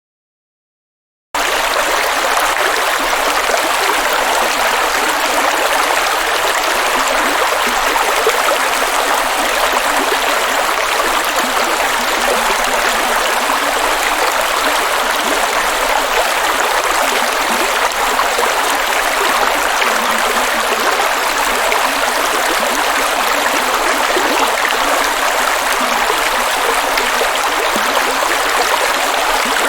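Water rushing steadily and heavily, cutting in abruptly about a second in after silence.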